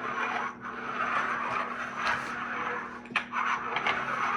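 Scraping and rustling of small plastic toy parts being handled on a table, with a few light clicks.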